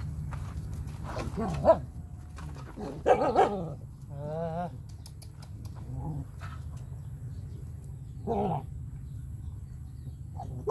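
Several dogs barking and growling in short outbursts as they crowd a shared food bowl, with one wavering whine about four seconds in, over a steady low hum.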